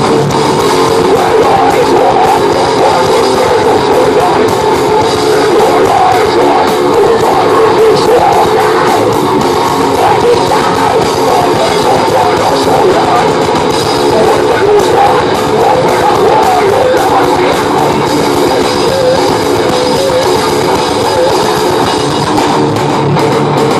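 Loud live groove metal band playing through the stage PA: electric guitars, bass and drums in a continuous dense wall of sound.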